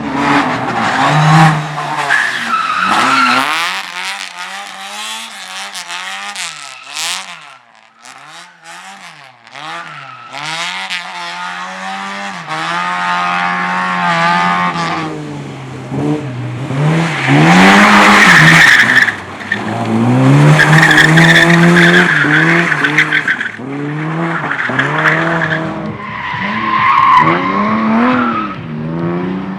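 A car engine revving up and down over and over as the throttle is blipped and lifted, with tyres squealing as the car slides through slalom and drift runs. The engine drops back to a quieter, wavering note a quarter of the way in. Long, loud tyre screeches follow from just past the middle.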